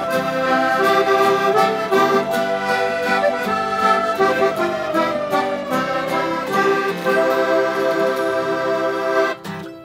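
Button accordion with acoustic guitars and mandolin playing the instrumental close of a folk song, ending together about nine seconds in.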